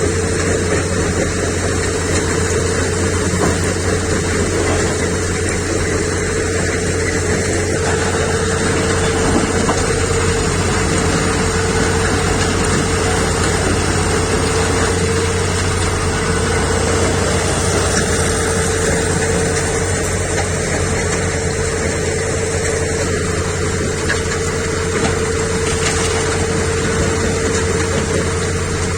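Diesel engine of a JCB backhoe loader running steadily, with a constant whine over the low drone.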